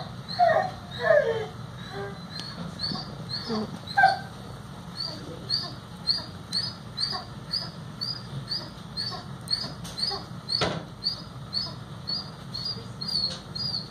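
An animal whining in a steady run of short, high-pitched whines, a little over two a second. Low voices are heard briefly near the start, and there is one sharp click late on.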